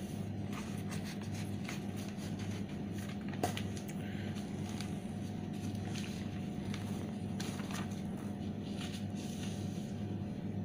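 Steady low hum with a slow pulsing beat, under a few soft rustles and taps of paper note sheets being handled and swapped.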